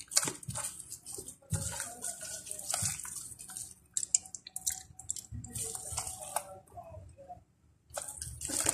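Slime being mixed and kneaded by hand: wet squelching with irregular small popping clicks, pausing briefly near the end.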